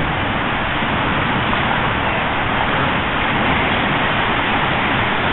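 Steady highway traffic noise from the Mopac freeway bridge, an even rushing sound with no breaks.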